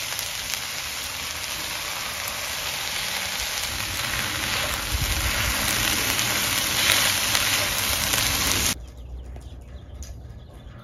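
Vegetables sizzling hard in a hot cast iron skillet over lump charcoal as chipotle peppers in adobo sauce go in and are stirred with a spatula. The sizzle grows louder over the first several seconds, then cuts off abruptly near the end, leaving a much quieter background.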